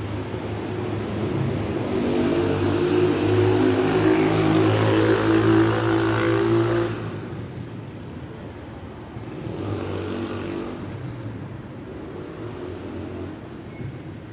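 Street traffic: a motor vehicle's engine passes close by, building to its loudest about five seconds in and dropping away sharply at about seven seconds. A second, quieter vehicle passes about ten seconds in.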